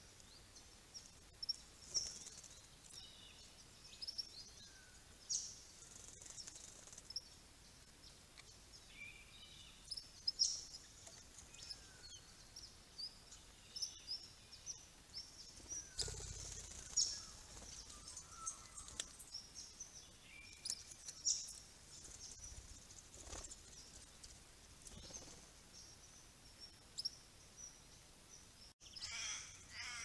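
Birds calling: short, high-pitched chirps and pips scattered throughout, some in quick repeated series. A brief flutter of wings comes about halfway through.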